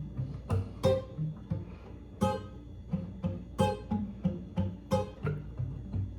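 Guitar being played: a steady run of plucked notes with a few harder, accented strokes.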